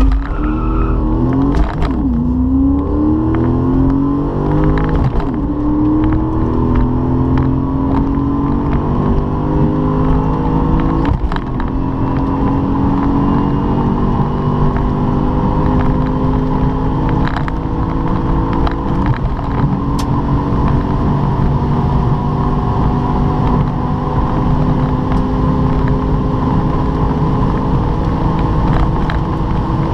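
Audi S8 4.2-litre V8 (AQH engine) in an A4 B5 at full throttle from a standing start, heard from inside the cabin. The revs climb and drop at upshifts about 2, 5, 11 and 19 seconds in, each gear pulling longer and rising more slowly as speed builds toward the top of the run.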